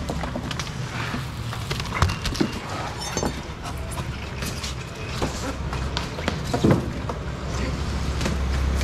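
Scattered knocks, thumps and scrapes of styrofoam fish boxes and plastic baskets being handled and set down, over a low steady rumble that grows louder near the end.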